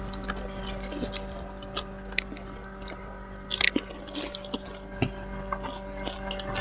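Someone chewing pani puri, with scattered soft crunches and wet mouth clicks and a louder cluster about three and a half seconds in, over a steady electrical hum.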